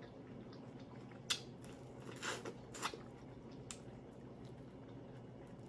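Someone chewing food mouth-open, with a few short wet smacks and bites spread over the first four seconds between quiet stretches.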